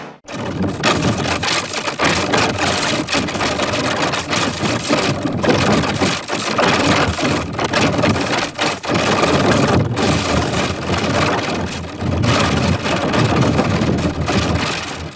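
Harsh, heavily distorted audio from a digitally effects-processed commercial soundtrack: a dense, noisy rumble with no clear tune, broken by a few brief dropouts.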